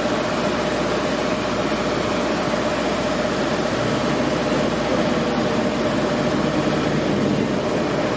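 Steady city street traffic noise: vehicle engines running and idling under a constant hum.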